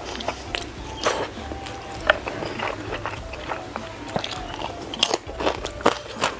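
Close-miked eating sounds: spicy noodles being slurped and chewed, with sharp crunchy bites and wet mouth clicks, including the crunch of a crisp fried topping about four seconds in.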